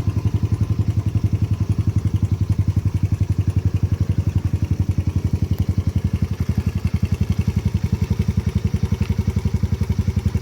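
Yamaha Raptor 80's small single-cylinder four-stroke engine idling steadily, with an even, rapid exhaust beat.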